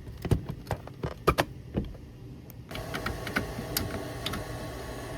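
Scattered clicks and taps of a plastic fire alarm horn strobe being handled. About halfway through, a steady hum with a faint tone comes in behind them.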